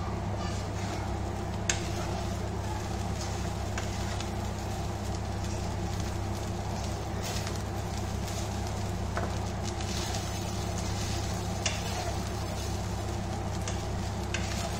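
Rice being stirred and tossed in a wok with a wooden spatula, sizzling faintly in oil, with scattered sharp clicks of the spatula on the pan, two of them louder. A steady low hum runs underneath.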